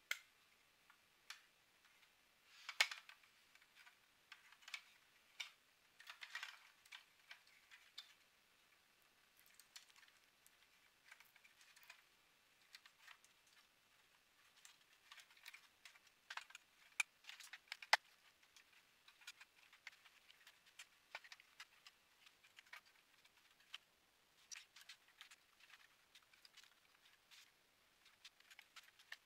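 Faint, irregular clicks, taps and rustles of hands handling a Dell 4350 projector's circuit board, wire connectors and plastic housing during reassembly, with a few sharper clicks about three seconds in and again near the middle.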